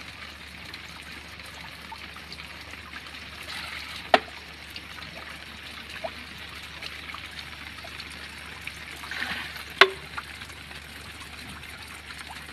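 Water trickling steadily, with scattered small ticks and two sharp clicks, one about four seconds in and a louder one near ten seconds.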